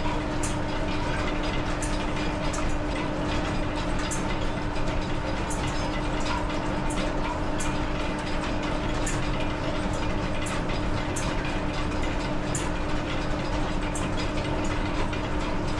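Overhead lineshaft, pulleys and flat belts turning, driving the machine tools, with a steady hum and a regular click about every 0.7 seconds.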